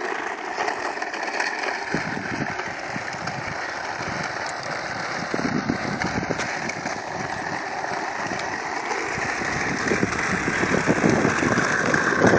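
Toy bubble lawn mower pushed along a sidewalk: a steady mechanical whir and rattle that grows gradually louder.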